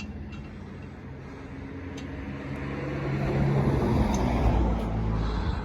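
A motor vehicle passing by: its noise swells for a couple of seconds, peaks about four seconds in, then fades, over a steady low hum.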